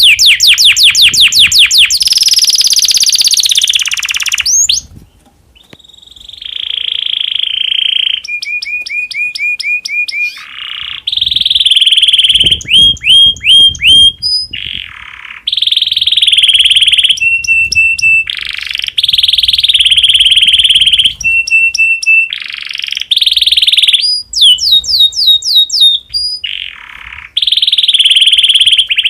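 Male domestic canary in breeding condition singing a long, varied song: fast runs of repeated sweeping notes alternating with buzzy rolling trills and repeated note trains, with a brief quieter break about five seconds in.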